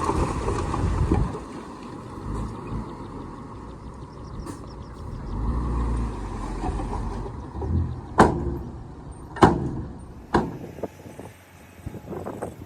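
A heavy machine's engine running with a low rumble, then three sharp loud knocks about eight, nine and a half and ten seconds in.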